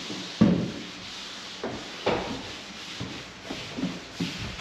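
Wood knocking and scraping as a board is pried and worked loose, with about six separate sharp knocks.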